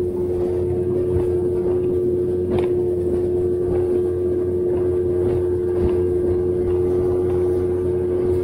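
Small boat's outboard motor running at a steady speed, a constant drone that holds one pitch, with water noise as the hull crosses choppy water.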